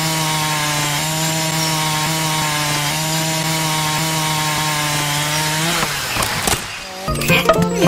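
Miniature motor-driven disc saw spinning and cutting into a twig: a steady motor hum with the rasp of the blade in wood. It cuts off about six seconds in, and music starts just before the end.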